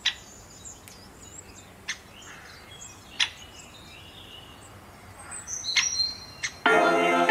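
Metal forks clicking sharply against a stainless-steel saucepan, five times, while a bread stick is turned in shallow frying oil; birds chirp faintly in the background. Guitar music comes in near the end.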